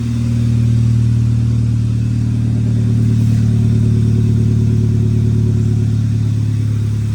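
The 2006 Mk5 Volkswagen GTI's 2.0-litre turbocharged four-cylinder (BPY) engine running steadily, rising slightly in level about a second in. It runs smoothly with its vacuum leak fixed.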